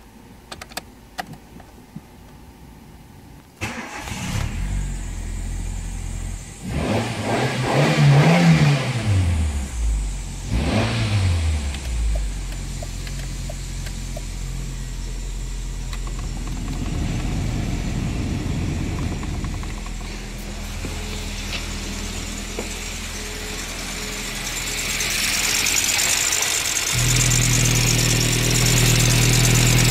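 A Nissan QG18 1.8-litre twin-cam 16-valve petrol four-cylinder starts after a few faint clicks. It is revved twice, then settles into a steady idle, heard from inside the car. Near the end it is louder, heard up close in the engine bay.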